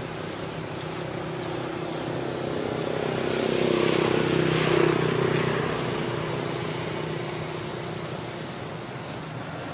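A motor vehicle's engine hum that swells to its loudest about halfway through, then fades again.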